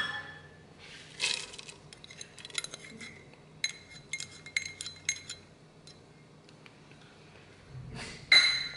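Metal measuring cup clinking against the rim of a stainless steel stockpot as frozen corn is poured into broth: a run of light, ringing clinks in the middle and one louder clink near the end.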